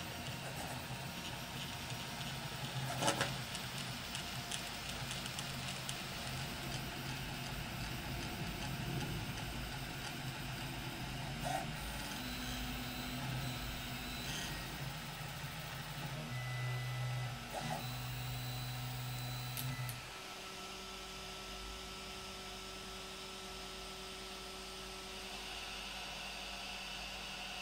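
CoreXY 3D printer printing: its stepper motors sing in steady tones that jump in pitch as the print head changes moves, over a steady hum, with a single click about three seconds in. About two-thirds through, the motor tones stop, leaving a quieter steady hum.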